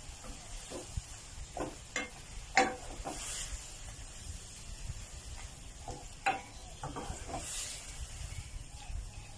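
Bite-sized chicken breast sizzling in a non-stick pan as it is stir-fried. A plastic spatula knocks and scrapes against the pan several times, loudest about two and a half seconds in.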